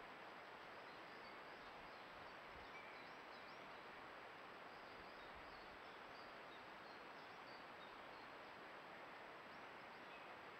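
Near silence: steady hiss from the trail camera's microphone with a thin high electronic whine, and many faint, short, high chirps of distant birds.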